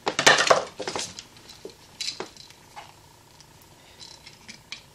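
Metal clattering and rustling as a wall receptacle and its wires are handled at the outlet box: a loud rustling clatter in the first second, a sharp click about two seconds in, then a few faint ticks.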